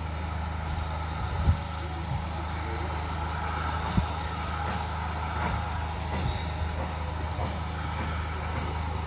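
Steam-hauled passenger train running slowly, heard from a carriage window: a steady low rumble of the carriage on the track, with two sharp knocks, about a second and a half in and again about four seconds in.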